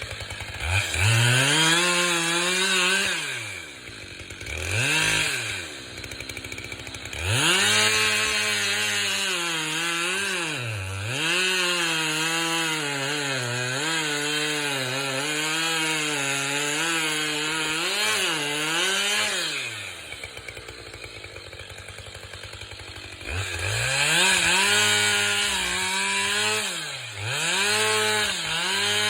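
Two-stroke chainsaw felling a white pine: it revs up and cuts, its engine speed dipping and recovering under load, and drops back to idle between cuts, three times.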